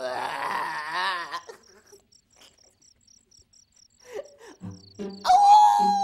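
Sketch soundtrack: crickets chirping steadily, about four chirps a second. A wavering wail fills the first second and a half, then it goes nearly quiet. Near the end a music sting comes in over a low beat, with a long tone gliding slowly downward.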